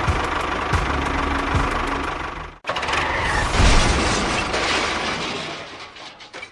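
A small engine running with an even clattering knock, cut off suddenly about two and a half seconds in. A rushing, hissing noise follows and fades away towards the end.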